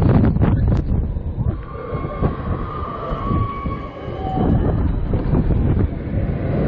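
Huss Giant Frisbee pendulum ride in full swing, heard from the gondola: a loud rushing rumble of wind and ride motion. A steady high whine runs through the middle for about three seconds.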